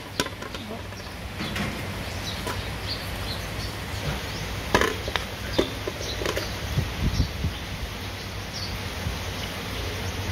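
A metal spoon clinking and scraping against an aluminium cooking pot as palm sugar is scraped off into it, a handful of sharp clicks about halfway through, over a steady hiss.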